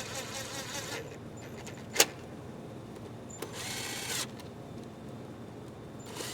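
Cordless impact wrench running a long intake manifold bolt in lightly, in short bursts: one run stops about a second in, a sharp click follows about two seconds in, and another brief run comes near the middle.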